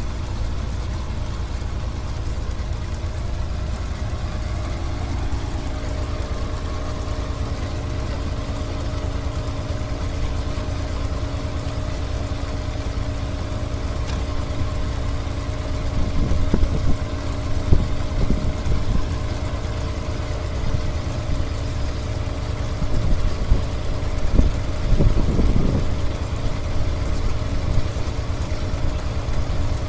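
Rice combine harvester's engine running steadily while its unloading auger pours paddy grain into a lorry, a constant low mechanical hum. A few louder, irregular surges come through around the middle and again a little before the end.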